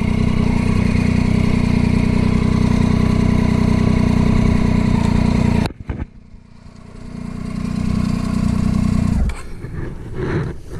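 Motorcycle engine running steadily under way, which cuts off abruptly a little past halfway. A quieter engine sound then swells and drops away again before the end.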